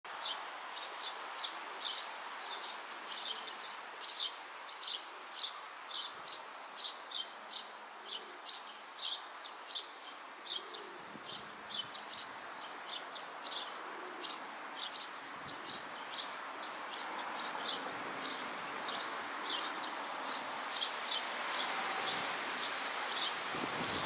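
Eurasian tree sparrows chirping: a steady string of short, high chirps, about two a second, over a low steady background hiss.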